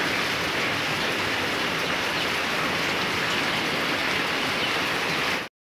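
Steady rain falling, an even hiss with no voices, cutting off suddenly near the end.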